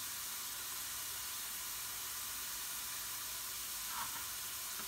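Ground beef and diced carrots sizzling steadily in a frying pan.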